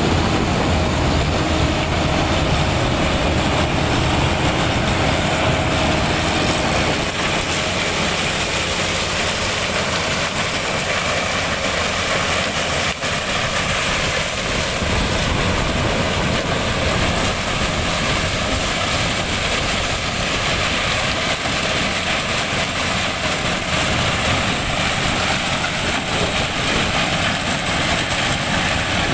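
Large farm tractor's diesel engine running steadily under load while ploughing open a new field.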